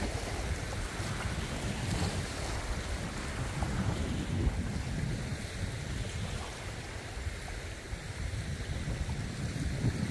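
Wind gusting across the microphone: an uneven low rumble over a steady rushing hiss.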